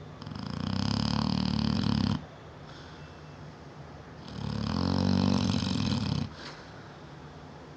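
Neapolitan mastiff snoring loudly in her sleep: two long snores, each about two seconds, with a pause of about two seconds between them, each cutting off sharply.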